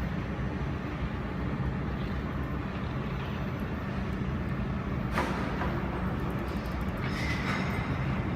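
Steady low machine hum, with a sharp click about five seconds in and a brief high-pitched tone near seven seconds.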